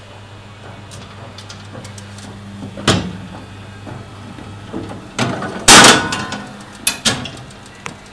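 Baumkuchen oven machinery: a low steady hum that fades about three seconds in, then a series of metal knocks and one loud scraping slide about six seconds in.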